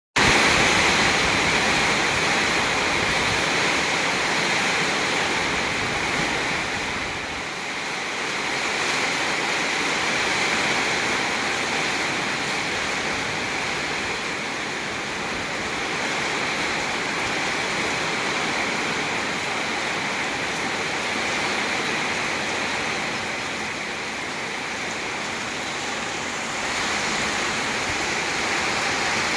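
Heavy storm rain pouring down in a steady rush, swelling and easing slightly at times.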